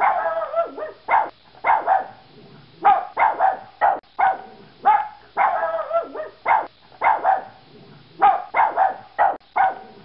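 Yorkshire terrier barking over and over, about two barks a second, often in quick runs of two or three with short pauses between.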